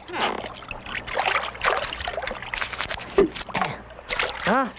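Cartoon sound effects: a run of irregular short splashing and rustling noises, then a short vocal grunt that rises and falls in pitch near the end.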